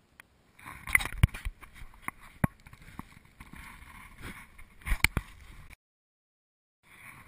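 Close handling noise on a kayak-mounted camera: knocks, clatter and several sharp thumps over a steady rushing noise as the camera is bumped and swung. The sound cuts out for about a second near the end, then resumes.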